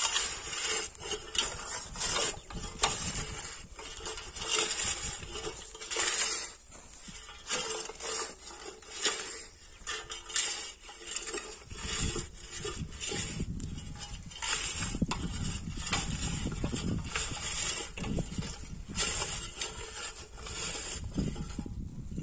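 Hand-pushed wheel weeder's flat sweep blade scraping and crunching through dry, cloddy ploughed soil, a continuous run of irregular scrapes and small clatters.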